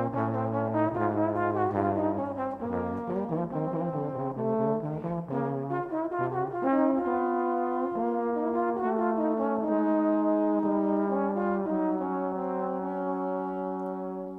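Trombone playing a slow, legato jazz-ballad melody over a band with a low bass line. The phrase ends on a long held note that fades out at the very end.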